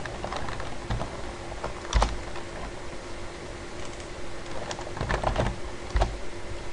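Computer keyboard and mouse clicks: a few scattered keystrokes and clicks, unevenly spaced, as short codes are typed into a spreadsheet-like grid. A faint steady hum lies underneath.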